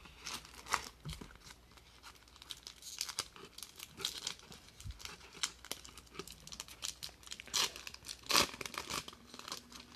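Foil wrapper of a 1994 Pacific Crown Triple Folder football card pack crinkling and tearing as it is opened and the cards are pulled out. It is a run of irregular crackles, the loudest a little before the end.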